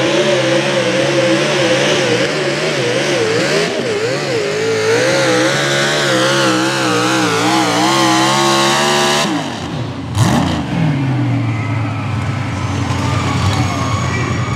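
Mini rod pulling tractor's engine running at full throttle under load, its pitch wavering up and down as it drags the sled. About nine seconds in the throttle is cut abruptly and the engine note falls to a lower idle, with a sharp pop about a second later.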